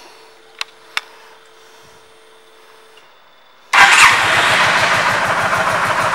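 Two clicks and a faint steady hum for about three seconds, then the 2007 Yamaha V Star 1300 Tourer's V-twin engine starts about three and a half seconds in and settles into a steady idle.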